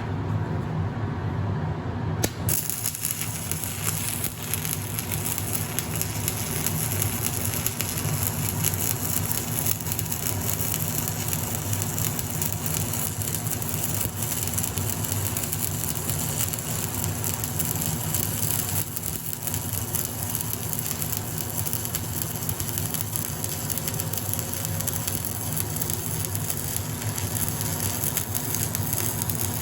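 Electric arc welding: the arc crackles and sizzles steadily as a weld bead is run on a broken log-splitter wedge, starting about two seconds in, over a steady low hum.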